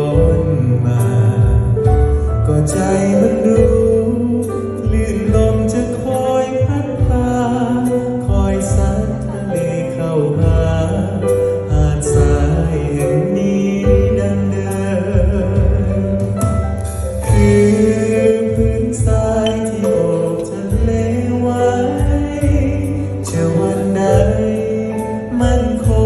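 Live band music: a man singing in Thai into a handheld microphone, backed by a drum kit with cymbals.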